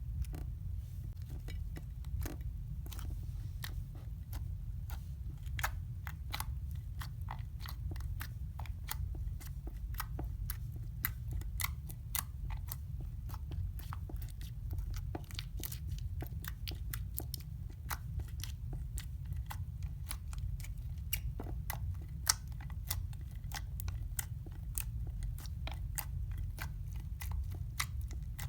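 Slime being squeezed and poked by hand, giving a dense, irregular run of small crisp clicks and crackles over a steady low rumble.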